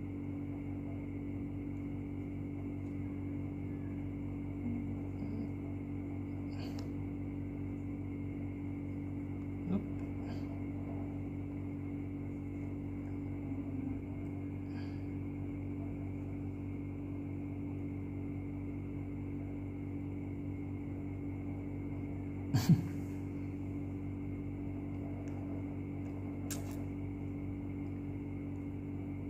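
Steady electrical mains hum, broken by a few soft clicks and one louder knock about three-quarters of the way through.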